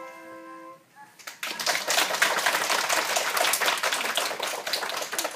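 Upright piano's final chord ringing out and fading, then a small group of people applauding from about a second in.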